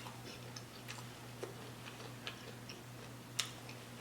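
Soft, irregular mouth clicks and smacks of someone chewing shrimp, cucumber and noodles close to the microphone, with one sharper click a little over three seconds in. A low steady hum runs underneath.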